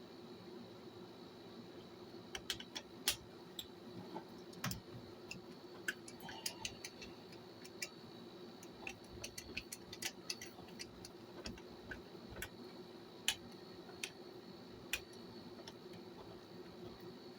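Scattered small clicks and taps of a screwdriver and small metal parts being worked loose while the motor is taken out of a 1965 Record-O-Fone answering machine. The clicks come irregularly, a few louder ones standing out, over a faint steady hum and a thin high whine.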